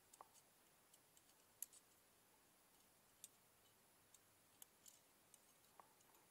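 Near silence, with faint scattered small clicks.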